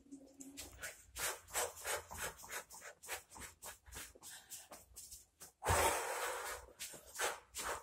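Rubbing and scraping noises in quick, irregular strokes, with a louder rough rushing stretch about six seconds in that lasts about a second.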